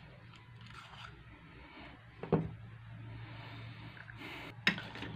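Screws being undone from a plastic drill body: two sharp knocks about two and a half seconds apart, with a brief scrape just before the second, over a faint low hum.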